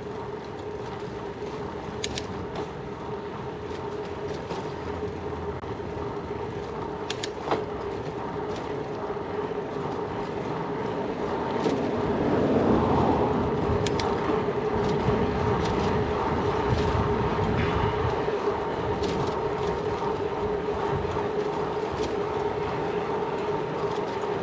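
Riding noise from a bicycle on the road: a steady hum over a rumble, with scattered sharp clicks and knocks, growing louder about halfway through.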